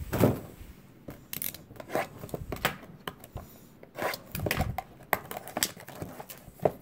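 Clear plastic shrink-wrap being torn and peeled off a cardboard trading-card box, crinkling with many irregular sharp crackles.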